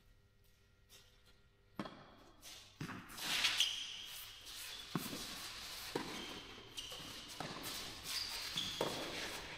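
Tennis rally on a clay court in a large echoing hall: a serve, then racket strikes on the ball and ball bounces about a second apart, with footsteps and short high squeaks between the hits.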